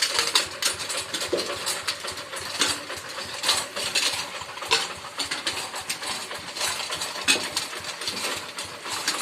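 Rice-field tractor's engine running, with irregular metallic clattering and rattling throughout.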